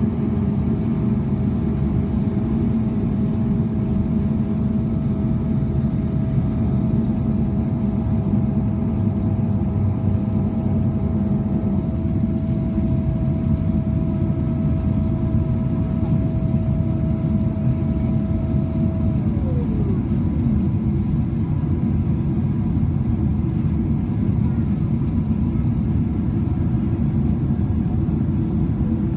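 Steady cabin roar of a Boeing 777-300ER in descent, heard from a window seat by the wing: engine drone and airflow noise. A steady engine whine above the roar drops in pitch about two-thirds of the way through.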